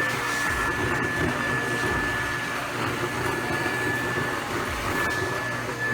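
Build-A-Bear stuffing machine running, its blower sending fluff through the tube into a plush bear: a steady rushing air noise with a constant high whine.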